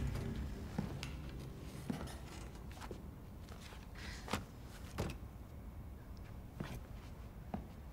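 Soft footsteps and small knocks on a hard floor, spaced irregularly about a second apart, over quiet room tone.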